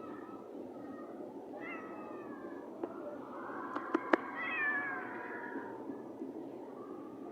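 Domestic cat meowing: a short call, then about four seconds in a longer meow that falls in pitch. Just before the long meow come a few sharp clicks, the loudest sounds here.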